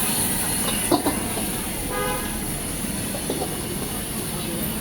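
Busy street ambience: a steady wash of background noise, with a sharp knock about a second in and a short toot about two seconds in.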